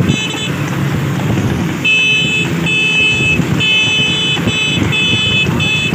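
Vehicle running along the road with engine and road rumble, and a high-pitched horn blaring in a rapid string of short blasts, about one and a half a second, starting about two seconds in after one brief blast at the start.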